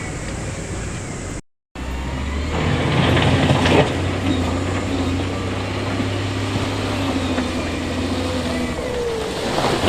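Heavy diesel earthmoving machinery running steadily, with clattering about three to four seconds in and again near the end. The sound cuts out completely for a moment about one and a half seconds in.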